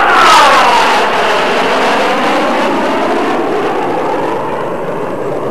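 Jet aircraft flying past: loud jet-engine noise with a sweep falling in pitch over the first couple of seconds, then slowly fading.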